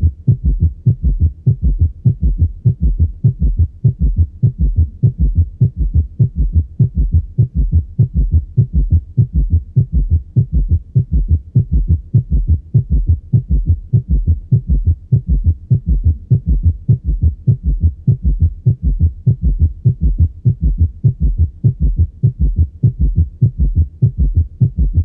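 Heart sounds on auscultation: a fast, regular gallop rhythm in which the third and fourth heart sounds (S3 and S4) have fused into a single extra sound, a summation gallop brought on by tachycardia. This gallop sound can be louder than S1 and S2, and it is the sign of severe cardiocirculatory failure.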